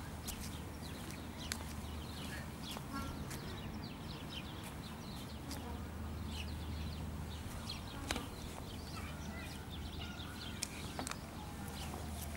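Many small birds chirping in the trees: short, quick calls throughout, with scattered clicks and a steady low hum underneath.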